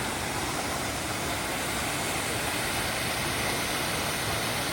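A waterfall: a steady, even rush of falling water.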